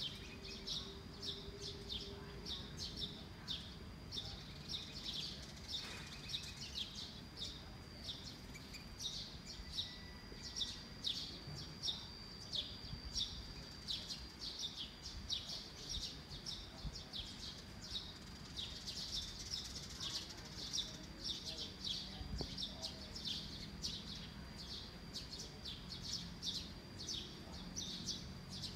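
Birds chirping: quick, high repeated notes, roughly two a second, over a faint steady high tone and low background noise.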